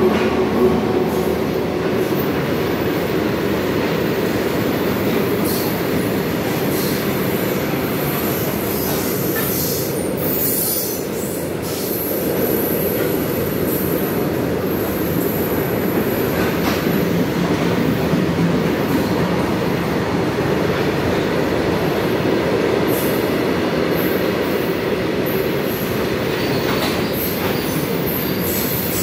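Indian Railways goods train passing close by: the electric locomotive and then a long string of open-top steel wagons, with a steady rumble of wheels on rail and faint high-pitched wheel squeals on and off.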